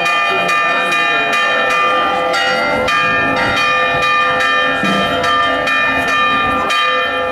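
Church bells ringing a rapid festive peal, several bells sounding together and struck about three times a second, rung as a religious procession sets out.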